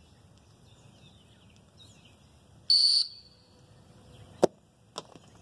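Dog training whistle: one short, shrill blast, the sit command given as the thrown bumper flies up like a flushing bird. About a second and a half later comes a sharp knock, then a fainter one.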